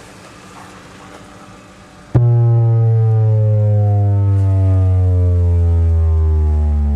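A bass test sweep through two 15-inch Rockford Fosgate P3 subwoofers, heard inside the Ford Explorer's cabin. After about two seconds of quiet cabin hum it starts suddenly and loud: one low tone with a stack of overtones, falling steadily in pitch.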